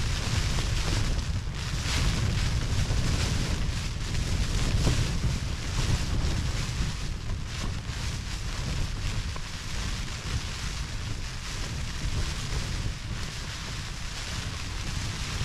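Strong wind gusting across the microphone: a heavy low rumble with a steady rush over it, swelling and easing with each gust.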